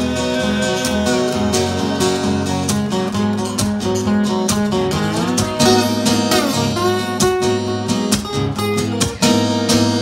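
Two acoustic guitars strumming an instrumental break between verses, with a harmonica played over them, its notes bending and gliding through the first half or so.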